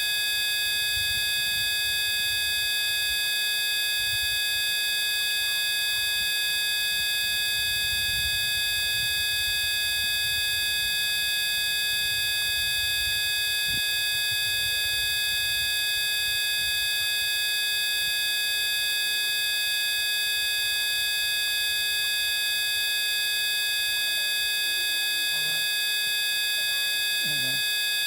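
A steady electronic tone track of many pitches, high and low, sounded together and held without change: a sound-healing frequency track meant for a lingering cough. A faint low rumble sits beneath it in the first half.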